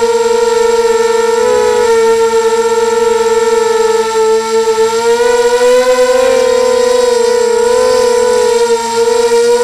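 250-size mini quadcopter's motors and propellers whining steadily in flight, heard from on board. The pitch dips briefly about one and a half seconds in and rises a little around six seconds.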